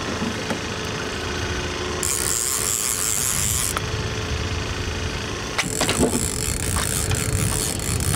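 Boat's outboard motor running steadily while a salmon is played on rod and reel, with a few sharp clicks in the second half.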